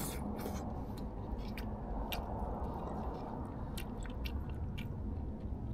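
Dogs eating, chewing and crunching food in short, irregular clicks over a steady low background noise.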